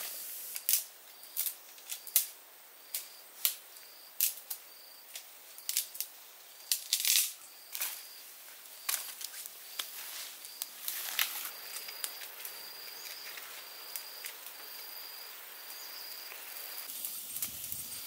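Wood and bamboo fire crackling, with sharp pops and snaps every second or so that thin out after the first half.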